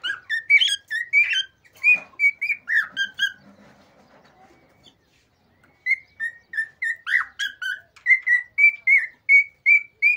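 Male cockatiel singing: a string of clear whistled notes, a pause of about two seconds, then a fast run of short repeated whistles, about three a second. This is the male's excited breeding song.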